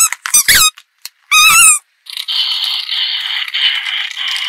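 Three short squeaks that bend in pitch, from rubber spiky toy balls, then from about two seconds in a steady, high-pitched electronic sound from a battery-powered light-up toy police car.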